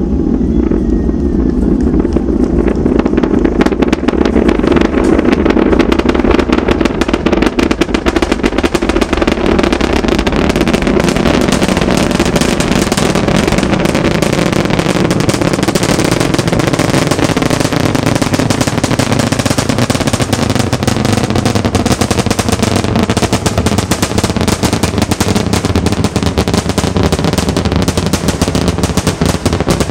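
SpaceX Starship's Super Heavy booster, its 33 Raptor engines heard from afar during launch: a loud, continuous crackling rumble, dense rapid pops over a deep low noise.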